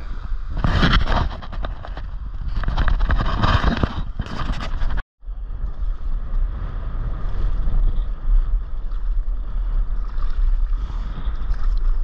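Wind rumbling on an action camera's microphone over the wash of water around a stand-up paddleboard, with louder gusts in the first few seconds. The sound cuts out briefly about five seconds in.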